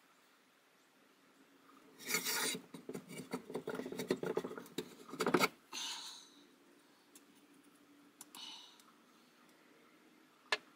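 Metal parts of an old drill press stand scraping, rasping and clicking against each other as it is taken apart by hand: a dense rasping stretch of about three and a half seconds, then two short scrapes and a single sharp click near the end.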